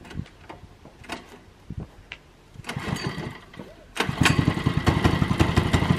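Small petrol engine of a kids' go-kart being started: it catches about four seconds in and keeps running with a rapid, even putter.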